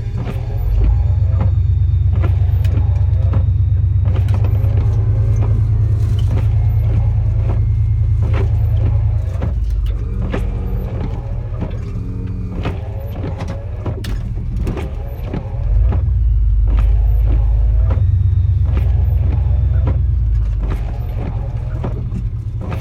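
Chevy pickup truck engine running while plowing snow, with a deep rumble that grows louder for two long stretches, over the first half and again near the end, as the truck works under load.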